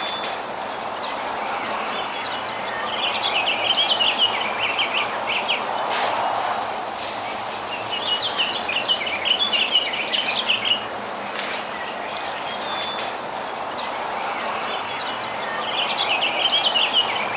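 Small songbirds chirping in three quick, twittering bouts (about three seconds in, about eight seconds in, and near the end), over a steady background hum of outdoor ambience.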